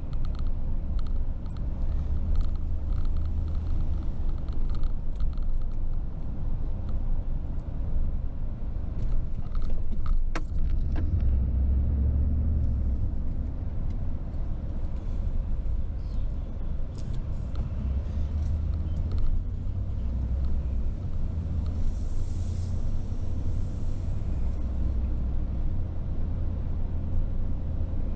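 A car driving, with a steady low rumble of engine and road noise, and scattered light rattles and ticks, a small cluster of clicks about ten seconds in.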